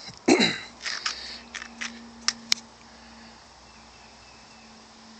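Several short, light clicks and knocks of handling over the first two and a half seconds, then a quiet lull with a faint steady hum.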